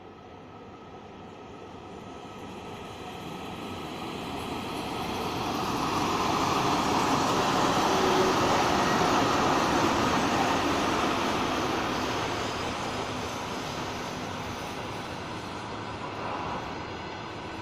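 VL11 electric locomotive hauling a freight train of hopper wagons, approaching and passing, wheels running on the rails. The noise grows to its loudest about halfway through, then eases off as the wagons keep rolling by.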